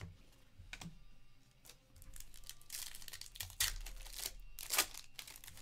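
Hands crinkling and tearing a foil trading-card pack wrapper and sliding cards against each other, a run of short rustling rips that are loudest about three and a half and five seconds in.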